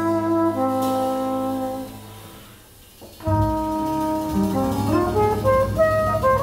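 Live jazz from a flugelhorn, piano and double bass: long held notes that die away into a brief lull about two seconds in, then the band comes back in a second later with a quicker line of changing notes.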